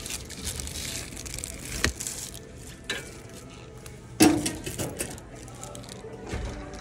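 Plastic bubble mailer rustling as it is pulled out of a metal parcel-locker compartment, with a few clicks, then one loud knock about four seconds in with a brief ringing: the metal locker door being shut.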